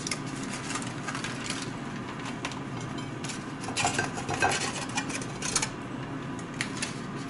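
Aluminium foil crinkling, with a metal fork clicking and scraping against ceramic dishware as a steak is lifted out of its foil wrap onto a plate. A run of short clicks and crinkles that gets busier about halfway through.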